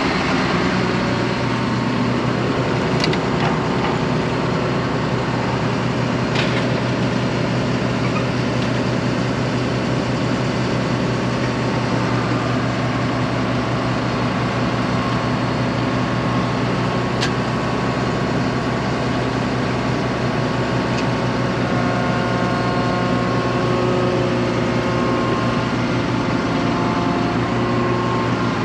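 Combine harvester's diesel engine running steadily, with a few brief metallic clicks.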